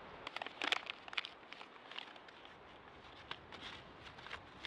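Dry kindling twigs crackling and snapping at a small campfire that is just being lit, in irregular sharp clicks, thick during the first second and a half and sparser after.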